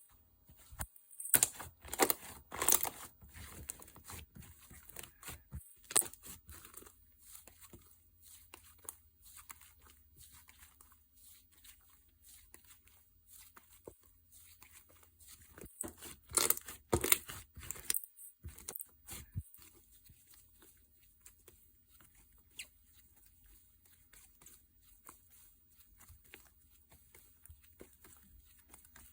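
Slime being squished, poked and stretched by hand, giving crisp clicks and crackling pops. The clicking is thickest in two spells, about a second in and again around the middle, with sparser clicks between.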